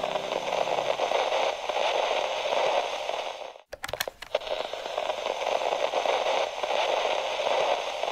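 Crackling static noise, a steady hiss with crackle. It cuts out briefly a little under four seconds in, with a few sharp clicks around the break, then carries on.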